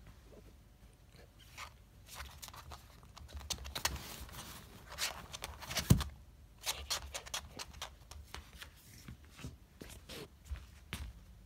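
Miniature dachshund pawing and scrabbling after a capsule in a gap under furniture: scattered scrapes, clicks and taps on a wooden floor, with one sharper knock about six seconds in.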